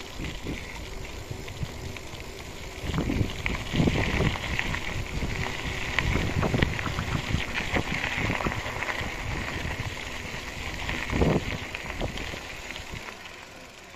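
Wind rumbling on the microphone in gusts, over a steady high hiss and scattered crackles.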